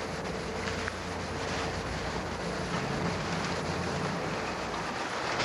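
Small boat's outboard motor idling steadily, under wind on the microphone and the chop of water around the boat.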